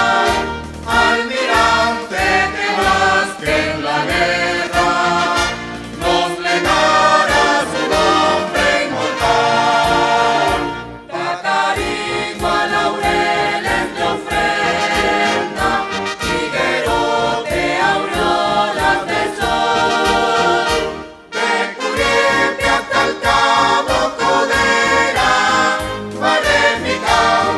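Choir singing a municipal anthem in Spanish with concert band accompaniment, a studio recording. The music pauses briefly twice, about a third and two-thirds of the way through.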